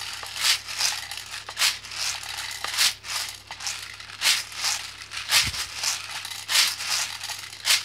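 Plastic airsoft BBs rattling inside a squeeze-bottle BB loader, which is shaken again and again in quick, irregular shakes about twice a second as the BBs feed into a spring airsoft drum magazine.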